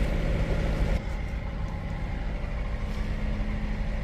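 A motor boat's engine running steadily under way: a low rumble with a steady hum, becoming a little quieter about a second in.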